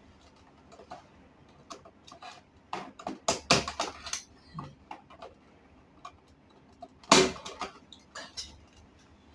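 Irregular small clicks and knocks from hand work with tools on circuit breakers in a distribution panel. The loudest cluster comes about three to four seconds in, and a sharp knock comes about seven seconds in.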